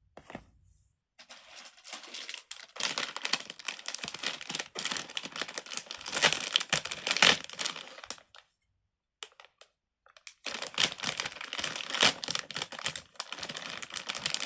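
Silicone pop-it fidget toy being pressed rapidly, its bubbles popping in a dense run of small clicks for about seven seconds, stopping for about two seconds, then starting again.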